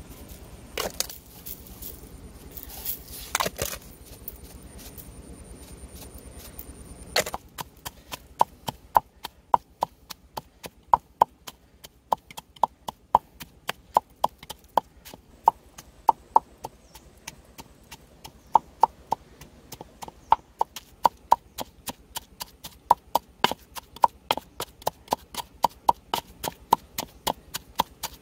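Stone pestle pounding garlic, red chilies and salt in a wooden mortar: a steady run of sharp knocks, roughly two to three a second, starting about seven seconds in. Before that there are only a few soft rustles and taps as the salt goes in.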